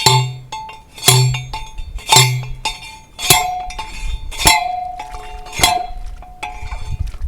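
A steel T-post being driven with a metal post driver: six clanging metal-on-metal strikes about a second apart, each ringing on briefly.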